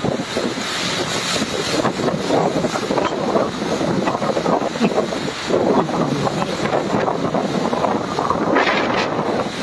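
Typhoon wind blowing in loud, rising and falling gusts with driving rain, the wind buffeting the phone's microphone.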